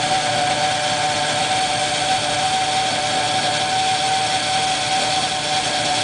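Radio-controlled helicopter's motor and rotor blades running steadily while it hovers on a pivoting training stand, with a constant high whine.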